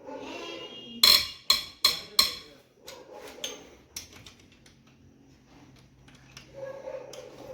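Four sharp metallic clanks in quick succession, tools striking metal, with lighter clicks and taps afterwards.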